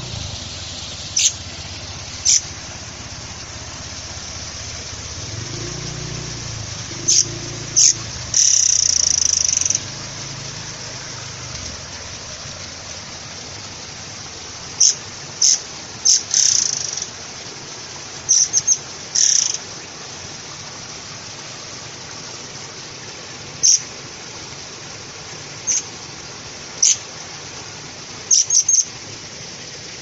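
Murai kopi songbird giving short, high-pitched calls at irregular intervals, about a dozen in all, with one longer call of over a second about eight seconds in.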